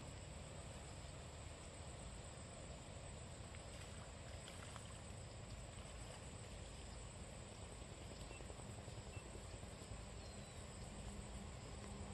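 Quiet outdoor ambience with steady high-pitched insect chirring and a low rumble underneath, broken by a few faint ticks.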